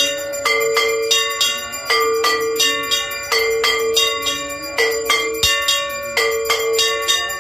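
Aarti bells ringing, struck quickly at about four strikes a second, the clear ringing tones overlapping in a pattern that repeats roughly every second and a half.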